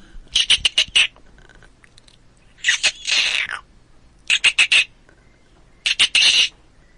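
Chipmunk calling in quick bursts of sharp, high chips, four groups of about five rapid chips each. About three seconds in, one group runs into a short chatter.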